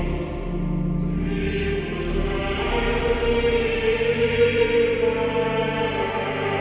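Choir singing sustained chords that shift to new pitches every second or two.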